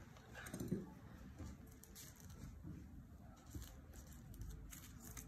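Faint handling noise of hands working a clay figure on plastic sheeting: soft rustles and scattered light taps, with one louder knock just under a second in.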